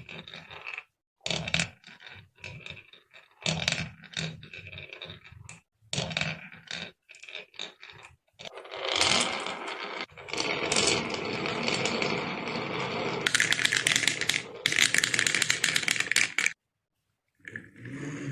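Marbles rolling and clattering through a marble run: short bursts of clicks and knocks at first, then a long continuous rolling rattle that turns into fast, dense clicking near the end.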